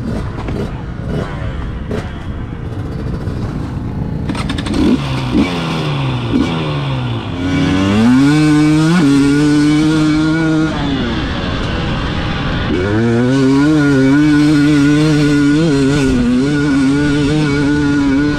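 Two-stroke KTM enduro dirt bike engine heard from on the bike. For the first few seconds there is mostly rough rattling noise. Then the revs climb and drop several times through gear changes and hold high and steady near the end.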